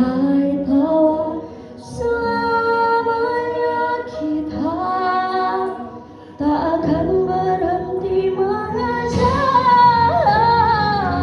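A female voice singing a slow song over backing music, holding long notes with vibrato, with short breaks for breath about two and six seconds in. She is singing with a cough and cold.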